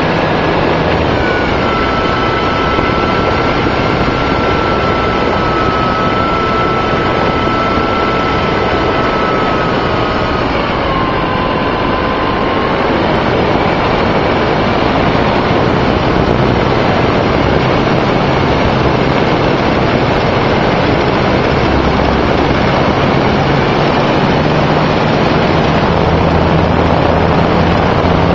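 Onboard sound of a radio-controlled model aeroplane in flight: a loud, steady rush of air over the camera microphone, with the motor's high whine dropping in pitch about ten seconds in and then fading.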